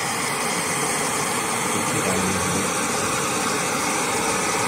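Steady running noise: a gas camping stove burning on a screw-in canister with a steep blue flame, over the continuous hum of a diesel space heater.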